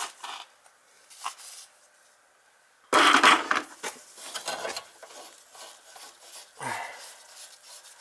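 Metal clinks and clatter of a brass compression ball valve and its nuts being handled and fitted onto copper pipe. The loudest clatter comes about three seconds in, with scattered clicks after it.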